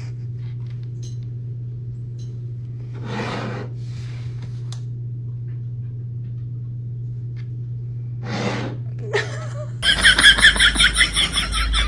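A person's stifled laughter, two short breathy snickers, over a steady low hum. About ten seconds in, a loud, rapid, pulsing sound starts abruptly.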